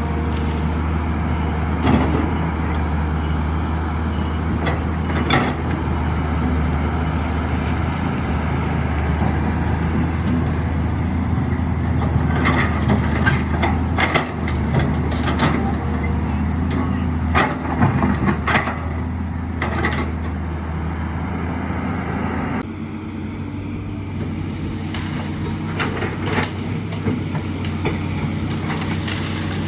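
Excavator's diesel engine running steadily under work, with a series of sharp cracks and knocks in the middle, typical of a tree and its branches being broken and pushed over. The engine note drops a little near the end.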